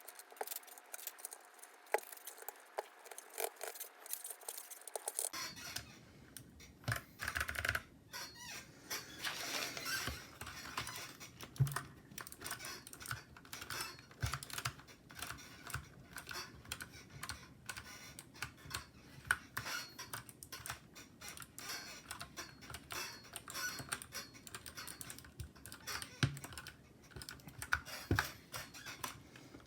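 Typing on a mechanical keyboard fitted with PBT keycaps: a steady, uneven run of key clacks with a few louder strikes.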